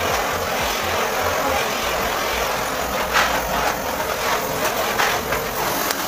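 Handheld butane torch burning with a steady hiss as its flame heats orange PVC conduit, with a couple of light knocks about three and five seconds in.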